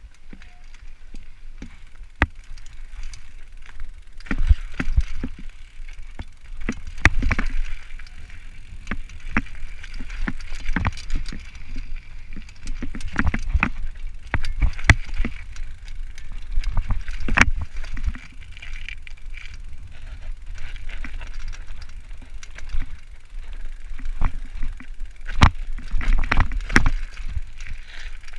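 Bicycle rolling over a rough trail, with its frame and parts rattling and knocking at irregular moments over bumps, under a steady low rumble.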